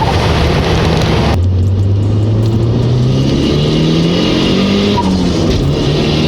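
Car engine under acceleration. Its note changes abruptly about a second in, then climbs steadily in pitch, drops back briefly near the end and climbs again.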